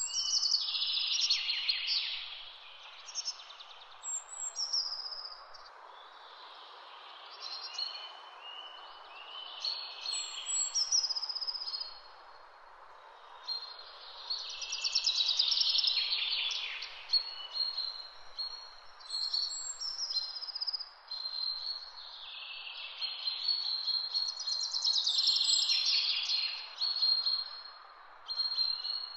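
Songbirds singing: long, high phrases with fast trills, coming in bouts every few seconds, over a steady background hiss.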